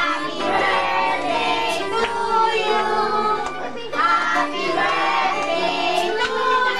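A group of voices singing together, children's voices among them.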